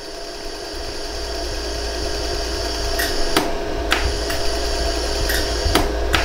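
Jewelry laser welder running with a steady hum and firing scattered single pulses, each a sharp click, on a hollow gold earring during a smoothing pass that homogenizes the repair. The hum builds from about half a second in, and the clicks come irregularly in the second half.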